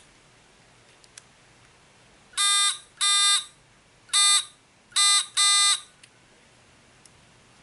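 Small battery-powered buzzer of a homemade rain alarm sounding in five short buzzes, each about half a second, at uneven spacing, as fingers touch the sensor's wire grid and bridge its wires, switching the alarm on.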